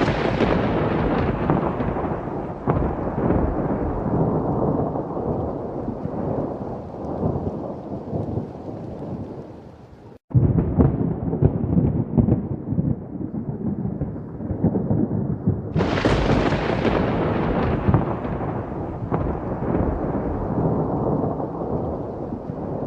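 Thunder: a loud clap fading into a long rolling rumble, an abrupt cut about ten seconds in, then more rumbling and a second loud clap about sixteen seconds in that rolls away slowly.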